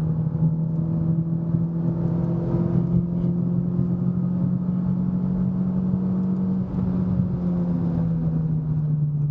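Renault Sandero RS's 2.0 four-cylinder engine pulling under load in fourth gear on an uphill climb, heard from inside the cabin. Its pitch holds nearly level, with a brief dip a little under seven seconds in.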